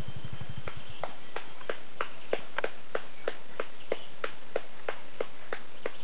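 An off-road vehicle's engine running at a low, even putter cuts out about a second in. A steady series of sharp clicks follows, about three a second.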